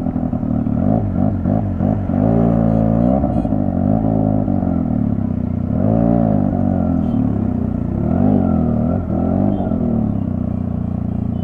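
Motorcycle engine running on the move, its pitch dipping and rising several times as the throttle and speed change.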